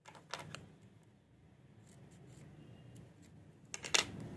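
Clear plastic wrapping and paper crinkling and rustling as tiny handmade paper packets are handled and unwrapped. There are a few sharp crackles about half a second in, quieter rustling after that, and a louder pair of crackles near the end.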